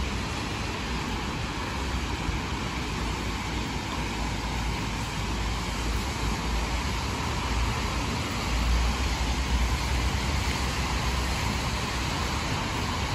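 Steady road traffic noise from cars on wet roads: an even hiss over a low rumble, swelling briefly about nine seconds in.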